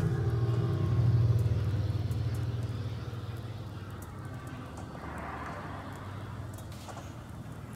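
A deep low rumble that swells about a second in and then fades away over the next few seconds, leaving faint steady room noise.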